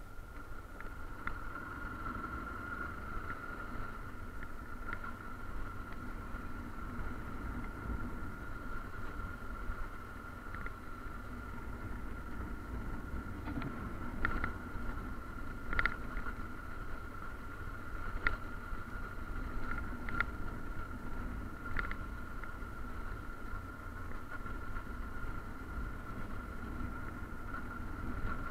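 Motorcycle riding slowly over cobblestones: its engine runs steadily under a low rumble, with a steady high-pitched whine. About halfway through, a few sharp clicks and knocks come at uneven intervals.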